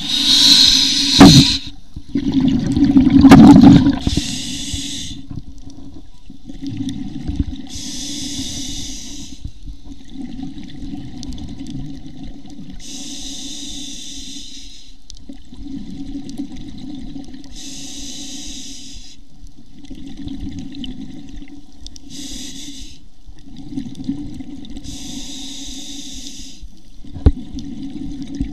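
Scuba diver breathing through a regulator underwater: two loud rushes of exhaled bubbles in the first few seconds, then a hissing inhale about every four to five seconds between bubbling exhales. A single sharp knock comes near the end.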